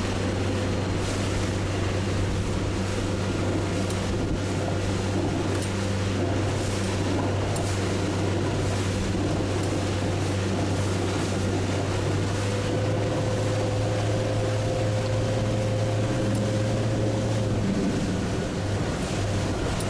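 Boat engine running at a steady, even speed, a constant low hum under a haze of water and wind noise.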